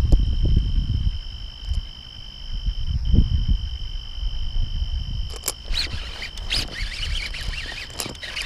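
Night-time cricket chorus: two steady high-pitched trills, with low rumbling on the microphone early on. In the last three seconds there is a run of sharp clicks and rustling, splashy noise.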